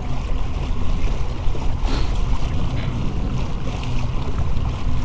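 Wind rumbling on the microphone over water rushing along the hull of a pedal-drive kayak under way at about 4.5 miles an hour.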